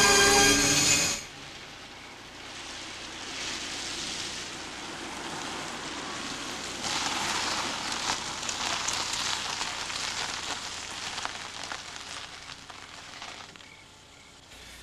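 Loud dramatic music cuts off about a second in. Then comes the steady hiss of a car's tyres on a wet road as the car approaches, louder in the middle, dying away as it comes to a stop near the end.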